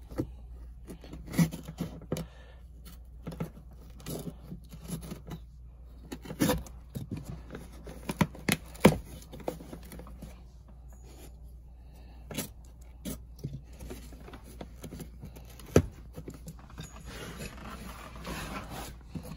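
Utility knife slicing and tearing through car floor carpet: irregular scraping cuts with scattered sharp clicks and a few louder snaps.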